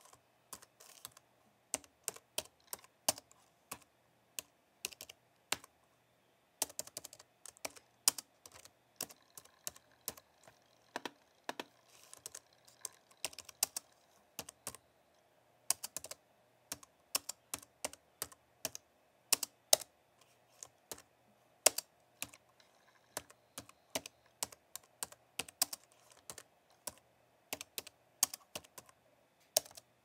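Typing on a slim low-profile keyboard: quick, light key clicks in irregular runs, with a pause of about a second and a half some five seconds in.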